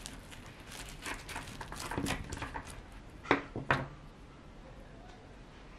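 Crisp, flaky laminated Danish pastry crackling and crunching as a knife cuts through it and it is pulled apart by hand. A little over three seconds in there are two short, much louder sounds about half a second apart.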